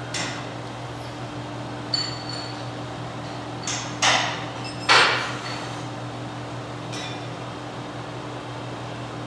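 CNC saw-blade sharpening machine running with a steady hum while it moves a carbide-tipped circular saw blade into place for its probe to measure the teeth, with several sharp metallic clicks and clanks, the loudest about five seconds in.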